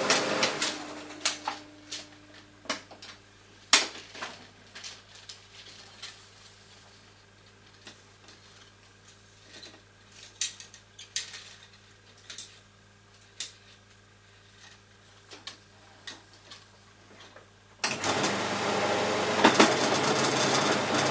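Bell & Howell 8D 655 16mm film projector switched off, its mechanism running down within the first second or two. A long stretch of scattered clicks and knocks follows as the metal film reels are handled. About 18 seconds in, the projector starts again abruptly and runs loud and steady.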